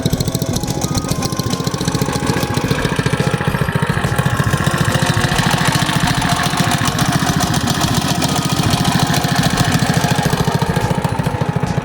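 212cc single-cylinder four-stroke engine on a Coleman CT100U mini bike running steadily, with rapid even firing pulses. The engine has just been rebuilt with a billet connecting rod and flat-top piston and is being broken in.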